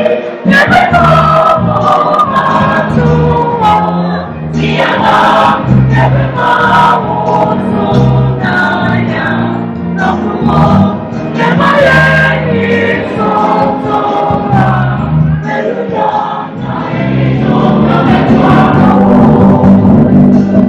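An a cappella group singing in harmony, a bass voice moving through low notes beneath the upper voices.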